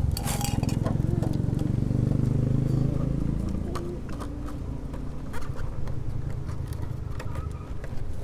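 A vehicle engine running, fading away over the first three seconds. Throughout, light metallic clicks and scrapes as a brake caliper and its new pads are handled and worked at with a screwdriver.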